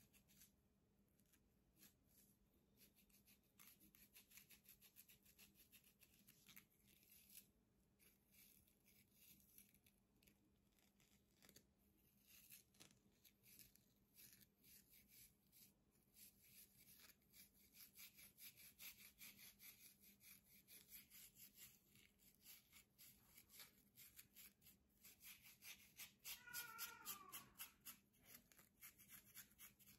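Plastic comb scratching through a dandruff-flaked scalp in rapid, repeated strokes, faint throughout. Near the end a brief wavering squeak rises above the scratching.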